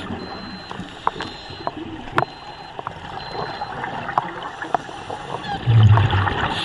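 Underwater sound of a scuba dive: a steady hiss with scattered sharp clicks, and a loud low burble of the diver's exhaled regulator bubbles about six seconds in.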